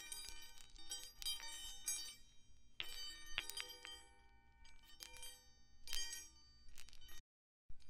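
Background music of light, bell-like struck notes in a quick run, with a brief total dropout near the end.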